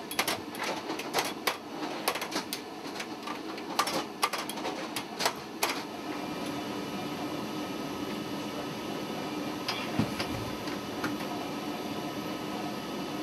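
Repeated metal clicks and clanks of ammunition rounds being pushed into a metal stowage rack and latched in place, thickest for the first several seconds, then a steady machine hum with a single knock near the end.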